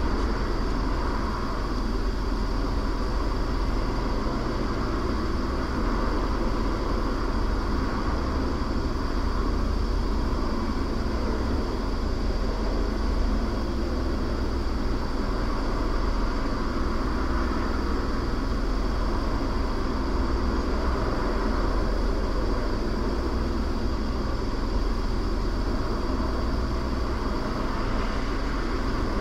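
Steady car running noise heard from inside the cabin: a low engine hum and road or idle rumble, with a thin steady high-pitched tone above it.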